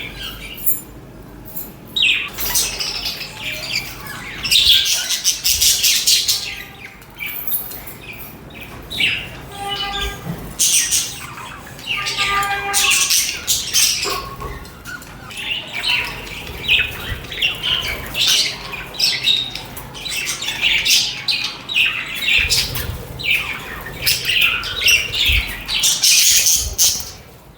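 Budgerigars chattering and warbling with rapid chirps and squawks, with a few lower, more tuneful calls about ten and thirteen seconds in.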